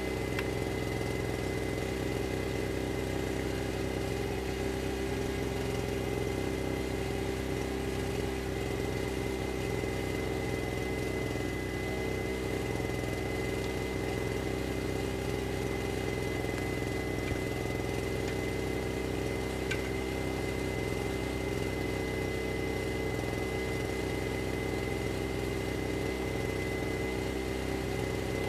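An engine idling steadily, a constant drone with a thin steady whine above it.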